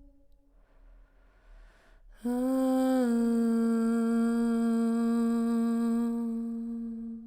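After a short pause, a woman's voice comes in about two seconds in with one long, low hummed tone for sound healing. The tone dips slightly in pitch soon after it starts, then holds steady for about four seconds and fades near the end.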